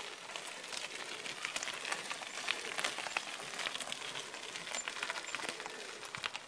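Mountain bike tyres rolling over a loose gravel track, a dense crackle of small crunches and clicks.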